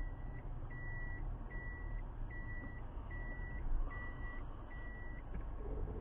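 A car's electronic warning beeper sounding a series of steady, even high-pitched beeps, about seven of them at a little over one a second, which stop near the end, over the low rumble of the car.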